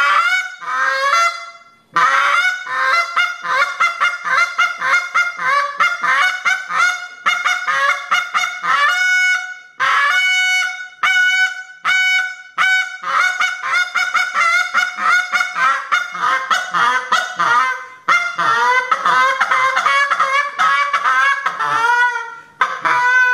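KES Waterfowlers Haymaker goose call, a lesser-style call with a little higher pitch, blown by hand through a calling routine that imitates lesser Canada geese: rapid strings of short honks with brief pauses about 2, 10 and 18 seconds in, and some longer, bending notes near the end.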